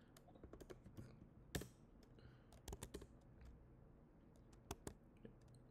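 Faint, irregular keystrokes on a computer keyboard, with a couple of sharper key clicks standing out.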